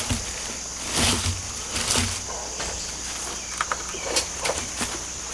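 Scattered knocks and thuds of scrap lumber being picked through and handled, several in quick succession near the end, over a steady high-pitched chirring of insects.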